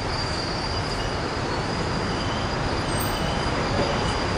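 Passenger train pulling away along the track past the platform: a steady rumble of wheels on rail with a thin, high, steady tone held over it.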